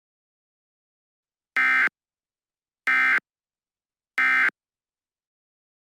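Emergency Alert System end-of-message signal: three short, identical bursts of buzzy SAME digital data tones, evenly spaced a little over a second apart, marking the end of the alert broadcast.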